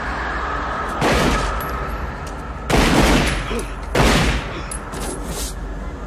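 Three loud gunshots from a film soundtrack, a second or so apart, each followed by a long echoing tail, over a low steady drone.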